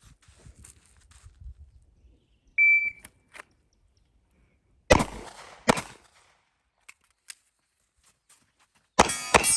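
A shot timer's start beep, then two handgun shots about a second apart from the draw. After a pause for moving up and reloading, a fast string of handgun shots begins near the end.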